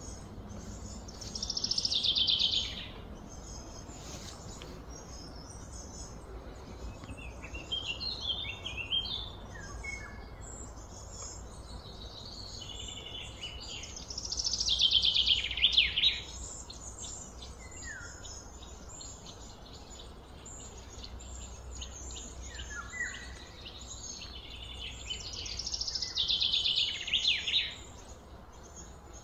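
A bird singing in loud phrases of quick, falling high notes, each a second or two long, repeated several times, over a steady low background hum.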